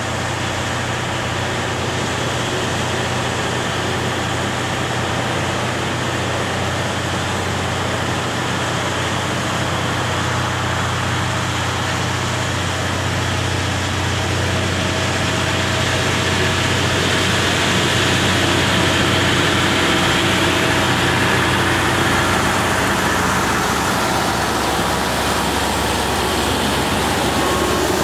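JR Hokkaido KiHa 183 series diesel railcars idling with a steady low hum, then the diesel engines throttle up about halfway through as the train pulls out of the station. The sound grows louder as the cars roll past.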